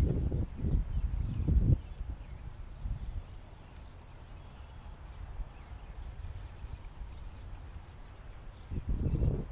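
Insects chirring steadily at one high, even pitch. Low rumbling noise on the microphone, the loudest sound, comes in the first two seconds and again near the end.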